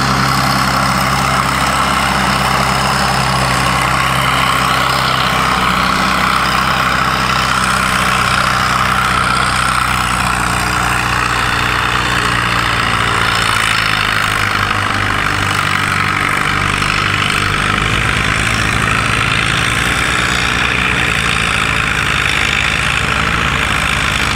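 A farm tractor's engine running steadily under load as it pulls the sled down a tractor-pull track.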